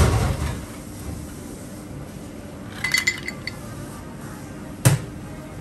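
Ice cubes clinking as they are scooped and dropped into a blender jar of cut fruit: a dull thump at the start, a quick cluster of bright clinks about three seconds in, then one sharp knock near the end.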